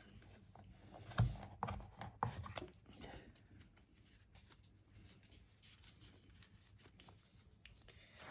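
Handling noises as a TAG Heuer chronograph is lifted out of its presentation box and its rubber strap and buckle are worked: a cluster of soft knocks and clicks between about one and three seconds in, then quieter scattered ticks and rubbing.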